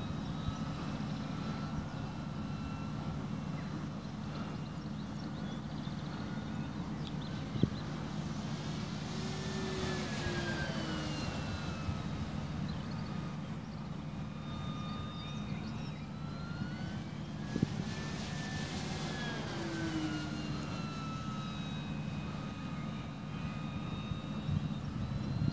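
Electric motor and propeller of a radio-controlled Dynam Hawker Hurricane model whining in flight overhead, the pitch gliding up and down as the plane swoops past, over a steady low rumble. Two sharp clicks stand out, about 8 and 18 seconds in.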